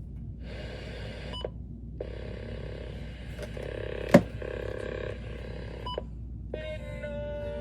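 Midland WR-300 weather radio's small speaker playing AM/FM band audio: stretches of static hiss and reception as it is switched between stations or bands, with short button beeps and a sharp loud click about four seconds in. Near the end a steady sound of several tones comes through, wavering a little in pitch.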